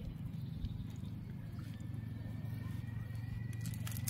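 A motor humming steadily at a low pitch, growing slightly louder.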